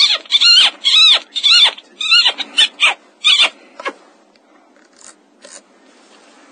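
Predator call squealing in a quick run of short distress squeals, each rising and falling in pitch, about three a second. The run stops about four seconds in, and two faint squeaks follow a second later.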